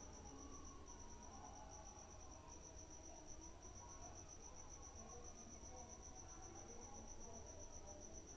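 Near silence: faint room tone with a steady, rapid, high-pitched chirping and a low hum.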